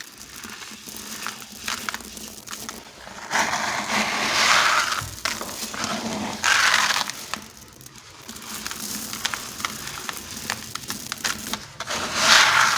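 Dry sand-cement blocks crumbling, a gritty crunching that comes in three louder bursts with small crackles and ticks between them.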